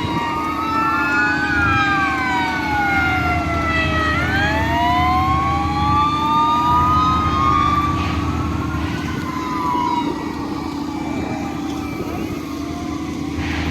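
Several fire truck sirens wailing at once, their pitches rising and falling out of step with each other, over a steady low engine rumble.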